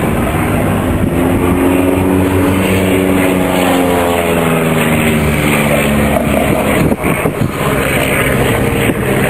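Single-engine piston propeller aircraft flying past overhead. The engine's drone drops in pitch as it goes by. There is a short knock about seven seconds in.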